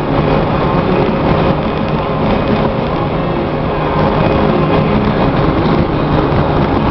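Steady road and wind noise inside a vehicle driving at highway speed.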